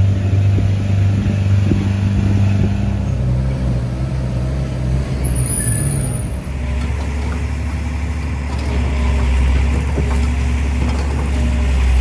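Diesel engines running steadily: first a forestry machine's engine, then, from about six and a half seconds in, a lower-pitched engine as a log truck drives along the forest road.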